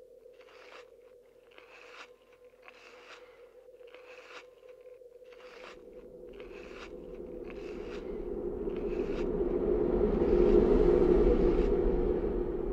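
Layered sound design: a steady hum under a regular series of short, crisp crunching strokes, about one and a half a second. Midway a rush of noise swells up, peaks near the end and begins to fade.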